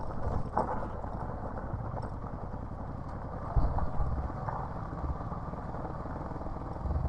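Motorcycle engine running at low, steady revs as the bike rolls over loose gravel, with a couple of dull thumps a little past halfway.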